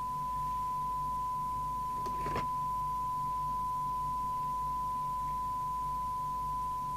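A steady, pure test tone of about 1 kHz comes from the Harrier CBX CB radio's speaker. It is the signal generator's modulation, received and demodulated while the radio's FM detector is being aligned. A brief click sounds a little over two seconds in.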